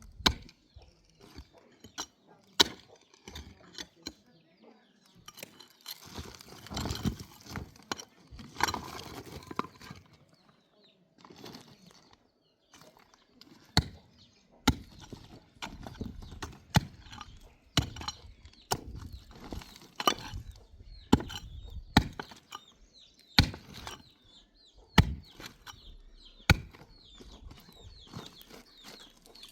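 An irregular series of sharp knocks or impacts, roughly one every second or so, with a stretch of noisy rustling between about six and ten seconds in.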